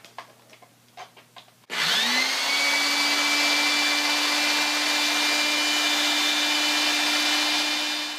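Corded electric drill with a nibbler attachment in its chuck, switched on about two seconds in. Its motor whine climbs quickly in pitch and then runs steadily, spinning free with nothing being cut. A few faint clicks come before it starts.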